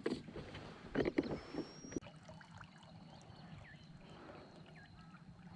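Water splashing and trickling around a kayak for the first two seconds, then quieter lapping under faint high chirps.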